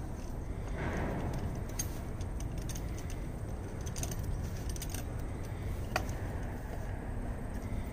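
Metal socket wrench clinking on a trailer wheel's lug nuts as they are turned loose: scattered light metallic clicks and ticks, with a sharper click about six seconds in, over a steady low rumble.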